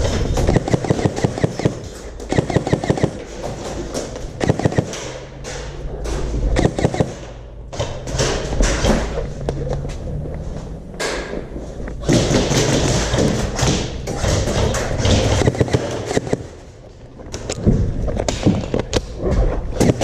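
Airsoft play: thumps and knocks from a player moving, with sharp clicks from airsoft guns firing, some in fast runs of shots.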